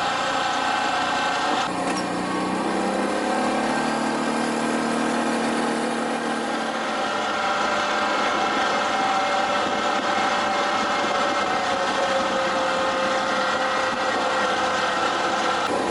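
Off-road vehicle's engine running steadily while driving along a dirt and snow trail, its pitch rising a little a few seconds in.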